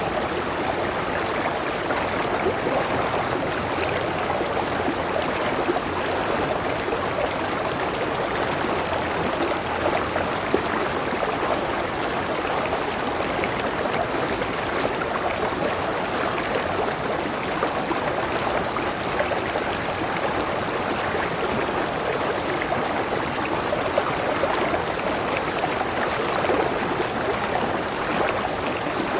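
Running water of a clear river and cascade: a steady, even rush of flowing water.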